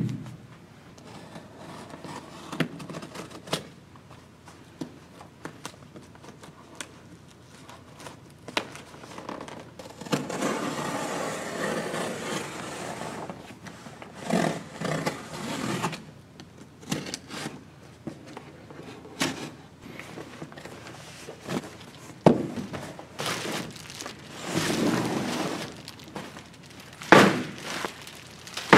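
A large cardboard shipping box being opened: a box cutter scraping and slicing along the packing tape, its blade going in with difficulty because the cardboard is soft. Knocks and scrapes of the box and its flaps are heard throughout, with crinkling plastic wrap near the end.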